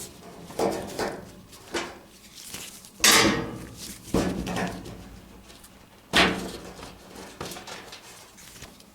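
Clunks and knocks of the dryer's sheet-metal cabinet panels being worked loose and handled. There are a handful of separate hits, each fading briefly, and the loudest comes about three seconds in with another about six seconds in.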